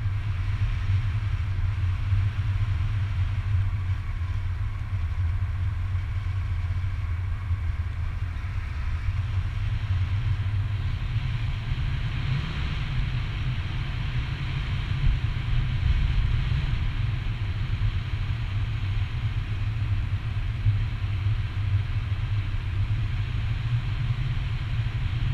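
Wind rushing over the microphone of a camera in paraglider flight: a steady low rumble with a fainter hiss above it.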